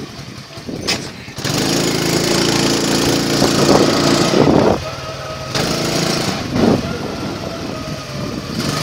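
Small motor scooter engine running steadily while riding, with wind rush on the microphone; the engine note eases off about five seconds in, then picks up again.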